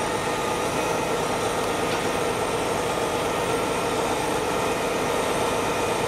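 Crane truck's engine running steadily under load while its boom lifts a bundle of wooden wall forms, a constant hum with a few fixed tones.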